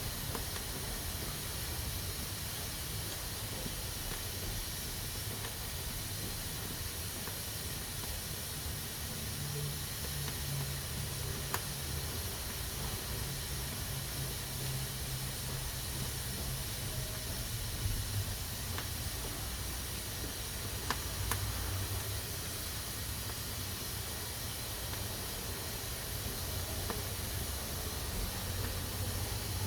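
Pressure cooker hissing steadily as steam escapes from its valve, the sign that the cooker is up to pressure.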